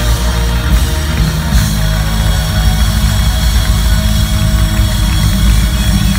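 Live rock band playing loudly, with heavy drums and bass, heard from within the concert audience.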